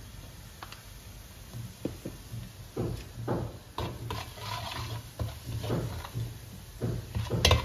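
A metal slotted spatula stirring spices and masala in hot oil in a copper pot: scattered scrapes and knocks against the pot from about two seconds in, over a low steady hum.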